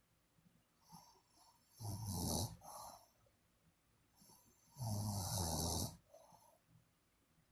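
Snoring: two snores about three seconds apart, each a low rasping rumble with a breathy hiss, the second one longer at about a second.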